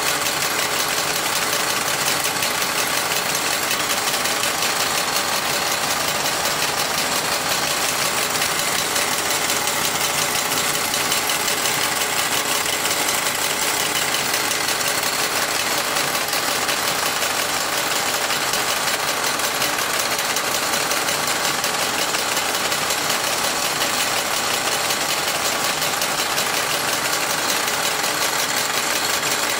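Wilesco D141 tin-toy workshop running off a model steam engine: belts and pulleys turning the tin workmen's saws, grinding wheel and polishing wheel in a steady, fast metallic clatter, like a busy workshop.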